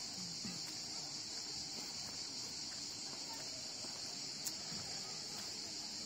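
Cicadas chirping in a steady, unbroken high chorus.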